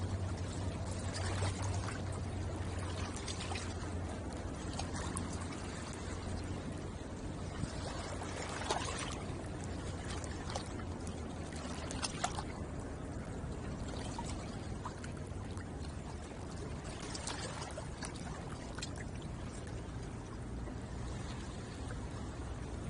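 Water lapping and washing against the shore in a steady wash, with a few sharper splashes.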